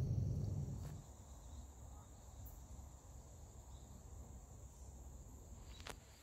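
Crickets chirring steadily in a high, even trill. A low rumble dies away after about a second, and a sharp click sounds near the end.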